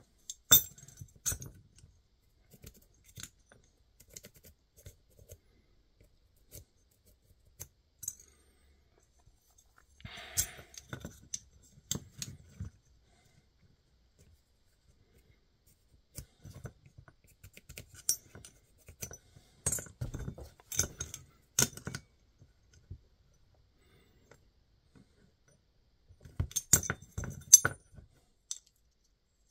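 Small metal channel pieces being handled, fitted together and set down on a workbench mat: scattered light clinks, clicks and knocks in bunches, with a brief scrape about a third of the way in. The loudest clinks come near the end.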